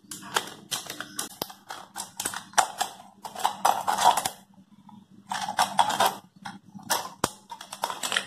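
Scissors cutting around a thin aluminium drink can: quick runs of crisp snips and crackles of the metal, broken by a couple of short pauses.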